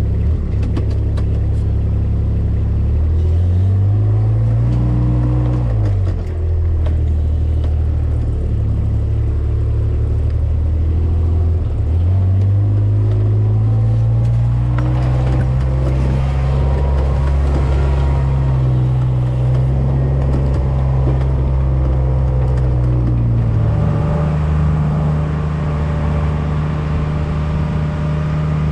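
Vehicle engine running under load while towing a log arch carrying a cherry log. Its pitch climbs and drops several times as it speeds up and changes gear, dropping again about three-quarters of the way through.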